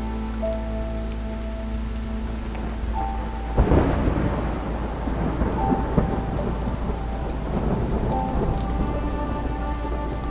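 Steady rain with a crack of thunder about three and a half seconds in that rumbles away over the next few seconds, with a few soft held musical notes underneath.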